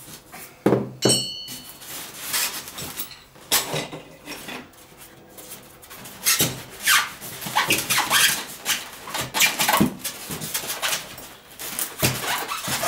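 Metal vise clamps and packed hardware being pulled from a foam packing insert in a cardboard box: an irregular run of knocks, clinks and scrapes, with a brief high squeak about a second in.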